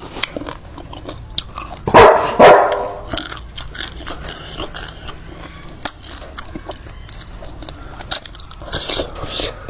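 Close eating sounds, with repeated biting and chewing clicks and crunches. A dog barks about two seconds in.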